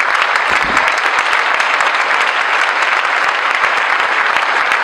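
Audience applauding, a dense, steady clapping that stays loud throughout.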